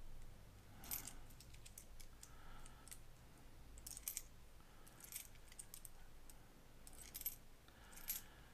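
Faint clinks and clicks of copper pennies as fingers turn and slide them against each other one at a time, a few light strikes spread a second or more apart.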